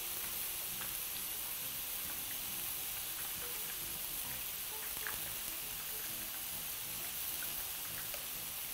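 Tofu deep-frying in a pot of hot oil: a steady sizzle with a few small pops.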